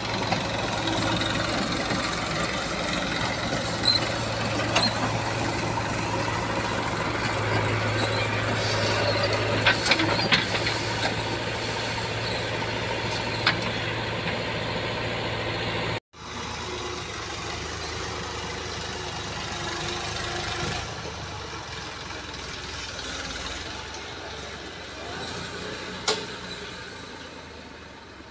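New Holland 3037 tractor's three-cylinder diesel engine running steadily as it pulls a trolley loaded with earth, with a few sharp knocks in the first half. The sound cuts off abruptly partway through, comes back quieter, and fades as the tractor moves away.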